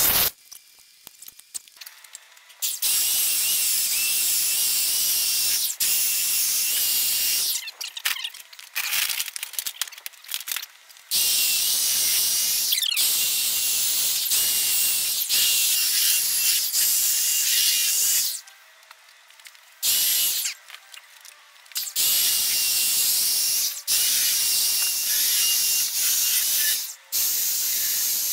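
Handheld electric power tool working the edge of a plywood floor panel. It runs in stretches of a few seconds with short pauses between, a steady high whine over a hissing noise.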